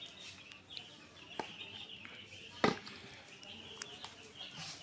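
Many broiler chicks peeping faintly and continuously, with a few sharp knocks, the loudest a little past the middle.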